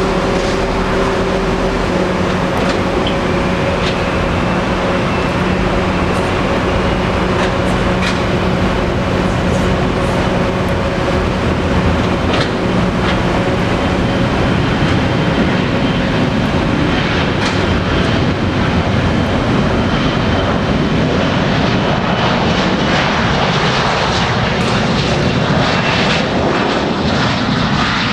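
Boeing 737-500's CFM56 turbofan engines running for takeoff: a high thin whine over a steady hum. From about halfway a broader, fuller rush takes over as the jet rolls down the runway at takeoff power.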